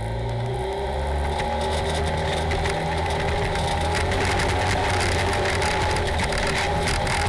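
Polaris RZR side-by-side's engine running steadily as it drives over a rough dirt trail, with many small clicks and rattles from the cab and the ground starting about a second and a half in; it gets a little louder about four seconds in.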